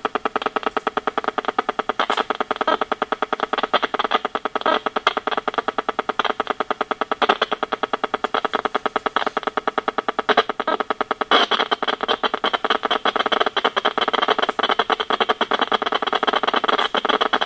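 EMFields Acoustimeter RF meter's audio output turning the WiFi signal from the iPad and the wireless router into sound: a loud, rapid buzzing train of regular clicks. It grows denser and louder about eleven seconds in.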